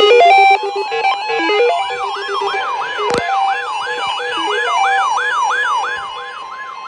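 Electronic siren sound: a short melody of stepped beeping notes gives way about two and a half seconds in to a fast rising-and-falling yelp, about three sweeps a second, over a steady tone. A single sharp click about three seconds in.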